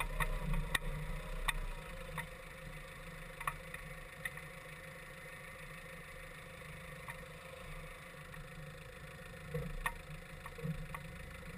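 Muffled low rumble of a vehicle engine running slowly, a little louder in the first two seconds, with a few sharp clicks and knocks scattered through it.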